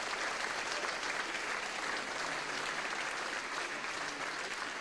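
Theatre audience applauding steadily, the dense even clatter of many hands clapping.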